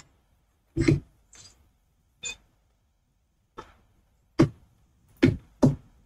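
A series of about seven short, sharp sounds at irregular intervals in near silence, the loudest about a second in and three in the last two seconds.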